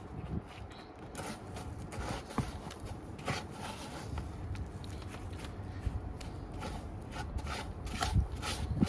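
Hands working with plants and pots: light scraping and rubbing with many small scattered clicks and knocks.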